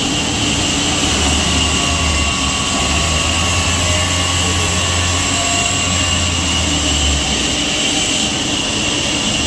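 Sawmill machinery running steadily with a constant high whine; a low hum comes in about a second in and stops about seven seconds in.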